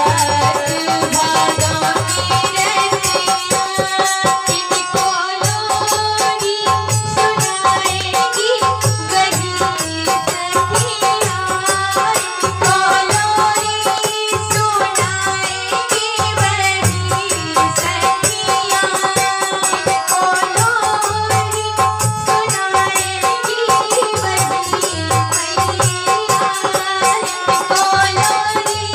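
A live Hindi devotional bhajan: a woman singing over a harmonium's held chords, with a dholak drum keeping a steady rhythm and a shaken, jingling hand percussion rattling along.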